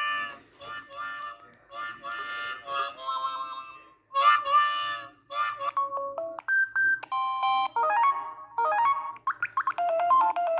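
LG Bello phone ringtones playing: short electronic melodies in a harmonica-like reed tone. The music breaks off briefly about four seconds in, then goes on with plainer stepped tones and more melody phrases.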